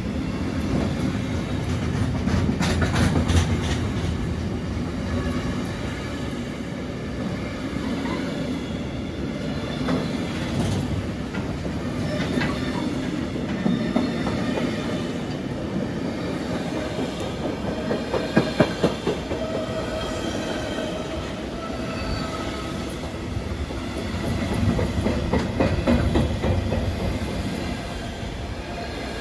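Intermodal freight train's container wagons rolling past: a steady rumble of wheels on the rails, with clicks as wheels cross rail joints and a faint thin wheel squeal now and then.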